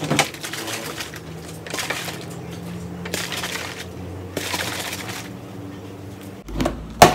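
Milk tea drawn through a straw from a gallon plastic bottle, in four short sips about a second and a half apart, then a thump and a sharp knock near the end as the bottle is handled.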